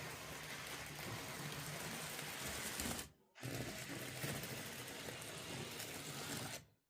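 Small electric motors of a 1:50 scale RC excavator and loader running with a steady whir. The sound breaks off briefly about three seconds in and cuts out shortly before the end.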